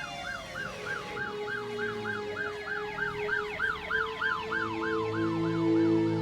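Emergency vehicle siren wailing in quick rises and falls, about three a second. Sustained music notes come in underneath about four to five seconds in.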